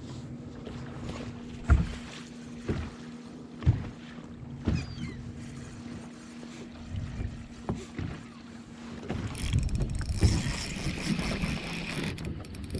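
Water slapping against a fishing boat's hull in sharp knocks about once a second over a steady low hum. About three-quarters of the way in, a fishing reel being cranked adds a fast, continuous rattling whir.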